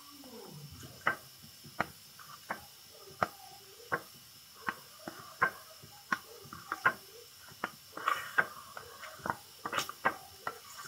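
Plastic spreader clicking and scraping on a mixing board and car panel while working body filler: a run of sharp clicks, about one to two a second, with soft scraping between them.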